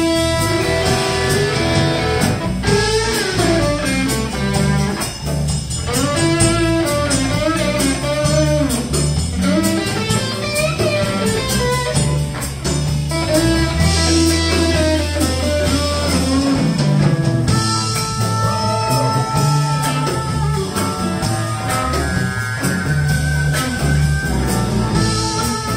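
Live blues band playing an instrumental break: an electric guitar lead with bending, sliding notes over bass guitar and a drum kit.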